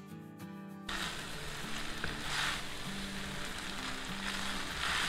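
Background music alone for about the first second, then chow mein noodles and vegetables sizzling in a hot stainless-steel pan as they are tossed with metal tongs and a spatula, the sizzle swelling twice as the noodles are turned, with the music continuing underneath.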